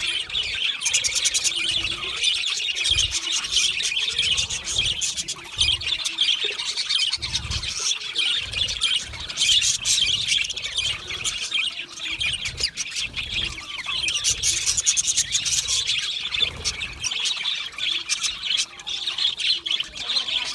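Budgerigars chattering continuously, a dense warble of chirps, squawks and rapid clicking notes.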